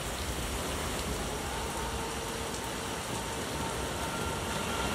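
Steady rushing sound of breaking surf, slowly growing louder, with faint steady tones coming in about two seconds in.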